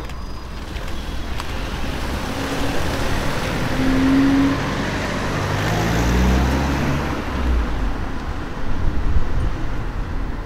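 Lowered cars, a Volkswagen Scirocco R and an Audi A4, driving off at low speed, engines running with a low hum and tyre noise; about six seconds in, one engine's note rises as it pulls away gently.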